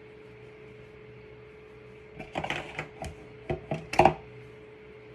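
An irregular run of sharp clicks and knocks from small objects being handled close by, about six or seven in quick succession starting about two seconds in, the loudest near the end, over a faint steady hum.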